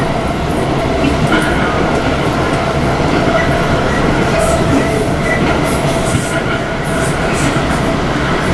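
Interior running noise of a British Rail Class 455 electric multiple unit on the move: a steady rumble of wheels on rail, with a faint steady whine over it.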